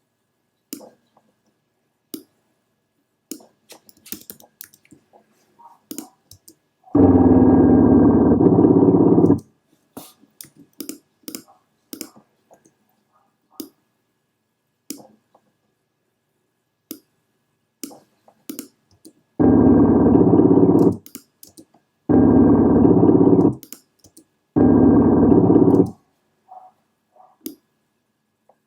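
Computer mouse clicks and key taps, scattered and sparse. Four times, about 7 s in and three times near the end, a loud steady sound rich in tones plays for one to two and a half seconds and cuts off suddenly.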